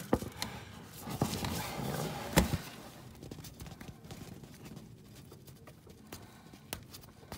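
A metal tool prying and picking at the old oil filter adapter seal on a Jeep 4.0 engine block: scattered clicks and taps with rubbing, busiest at first with one louder knock about two and a half seconds in, then only a few light clicks.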